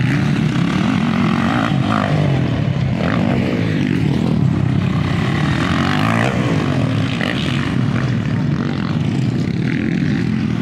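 Motocross dirt bike engines revving hard, their pitch rising and falling again and again as the riders accelerate and ease off around the track.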